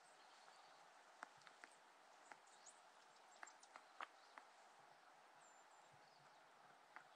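Near silence: a faint, steady outdoor hiss with scattered soft, irregular clicks and a few faint high chirps.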